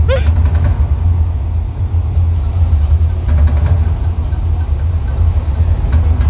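Deep, loud, steady rumble of the Mirage's artificial volcano show as its fire erupts, with a brief rising whistle just at the start.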